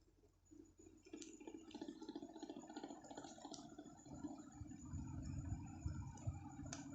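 Ceiling fan running with a low, steady hum and a few faint clicks. A deeper rumble grows louder about four seconds in.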